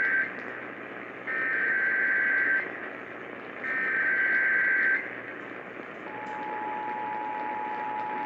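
Emergency Alert System activation for a flash flood warning, heard over AM radio with static hiss. It opens with the end of one SAME header data burst and then two more raspy digital bursts, each about a second long. About six seconds in, the steady two-tone EAS attention signal begins.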